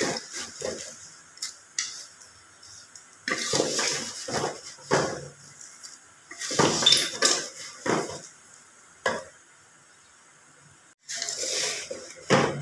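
A spoon stirring and turning thin dry vermicelli as it roasts in oil in an aluminium pot: irregular bursts of scraping and rustling against the pot, with short pauses between strokes and a sharp knock about nine seconds in.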